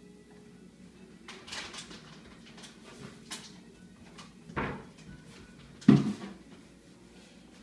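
Gravity-fed pet water dispenser glugging as air bubbles up into its plastic reservoir: two short low glugs, the second louder, after a few soft rustles.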